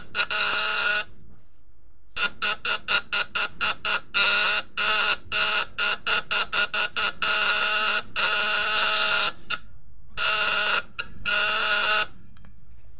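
Vibrating contact breaker (platina) of a homemade 12-volt fish shocker buzzing loudly as it drives the step-up coil with two 100-watt bulbs as load. The buzz cuts on and off in a rapid string of short pulses, then in longer runs of a second or so, and drops away near the end.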